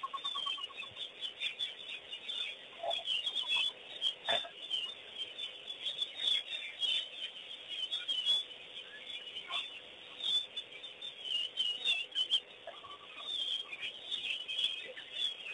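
A chorus of wild birds calling and chirping, with many short overlapping calls and a few lower, fowl-like clucks. There is one short knock about four seconds in.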